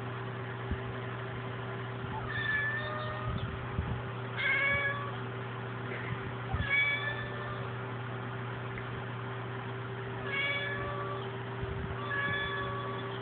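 Ragdoll cat meowing: five short meows about two seconds apart, with a longer pause in the middle, over a steady low hum.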